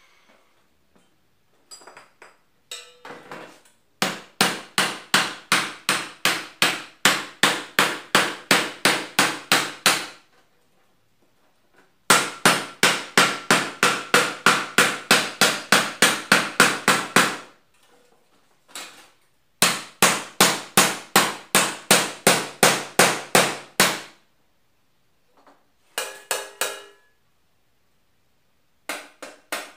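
Hand hammer striking a sheet-metal strip on a workbench to shape the edge of a bodywork repair piece. Three long runs of quick blows, about three a second, each blow ringing, with short pauses between them and a few scattered taps.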